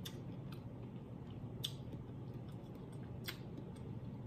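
Quiet eating sounds: a handful of faint, sharp clicks and smacks from chewing and handling shrimp, over a low steady hum.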